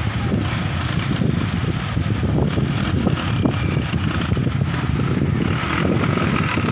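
Steady low rumble of a moving vehicle, with wind buffeting the phone's microphone.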